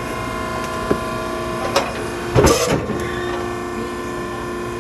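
Maren cardboard baler's hydraulic power unit running with a steady mechanical hum, with a couple of light knocks and a louder clank about two and a half seconds in.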